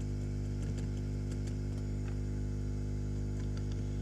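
Steady electrical mains hum with a stack of low buzzing tones, and a few faint, light ticks scattered through it.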